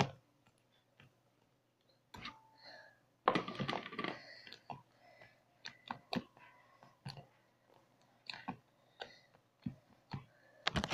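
Sticky slime squeezed and pulled apart in the hands close to the microphone: irregular wet clicks, pops and squelches, with a longer run of squelching about three seconds in.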